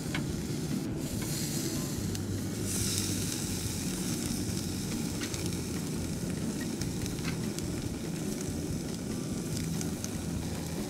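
Largemouth bass fillets and roe sizzling on the wire rack of a butane tabletop grill as they are laid on, the sizzle growing brighter about three seconds in, with a few faint crackles and a steady low hum underneath.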